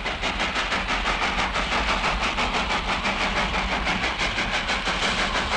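Steam locomotive running at speed, its exhaust beating out rapid, even chuffs about five or six times a second over the steady rumble of the train.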